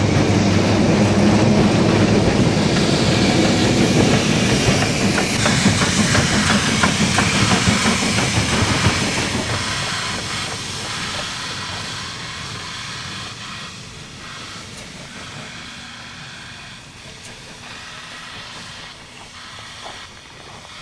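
Steam rotary snowplow Xrot d 9213 (Leslie patent, built by SLM in 1910) running on the rails with its electric locomotive: loud hissing steam, a low steady hum and wheels clicking over the rails. The sound fades after about nine seconds.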